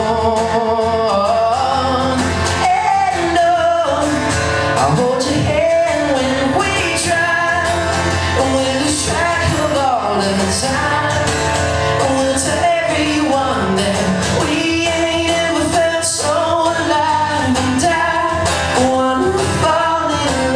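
Live acoustic pop song: a man singing into a microphone over his own strummed acoustic guitar.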